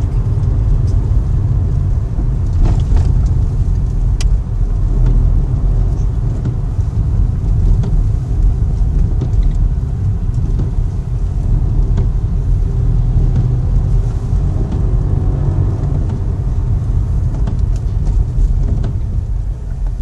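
Steady low rumble of engine and road noise heard inside a car's cabin while driving, with a few faint clicks.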